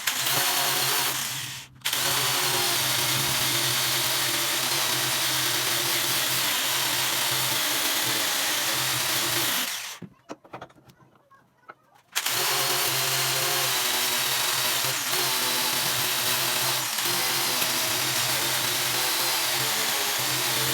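Electric power tool running steadily, with a short dip about two seconds in. It stops for about two seconds near the middle, then runs again.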